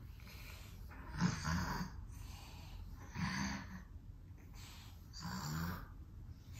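A flat-faced cat breathing audibly with a snuffly, snore-like sound: three louder breaths about two seconds apart, with fainter breaths between. The cat is winded from chasing a laser pointer.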